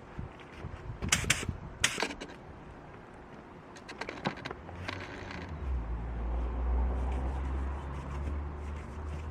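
Spray-gun rig in use: a few sharp clicks and knocks, a brief hiss of air about five seconds in, then a low steady hum from about six seconds on.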